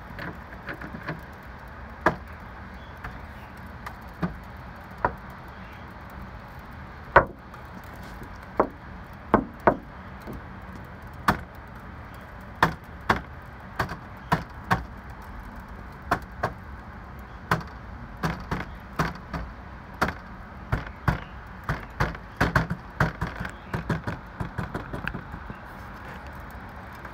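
Small ice pellets from freezing rain ticking irregularly on an ice-crusted window ledge. The ticks come much thicker in the second half, over a steady low background noise.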